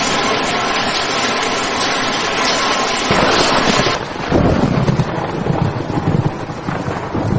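Steady hiss of rain. About four seconds in the hiss drops away and an uneven low rumble takes over.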